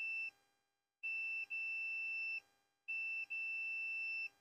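Multimeter continuity beeper giving a steady high-pitched beep that cuts out and comes back about every two seconds, each beep lasting over a second with a tiny break just after it starts.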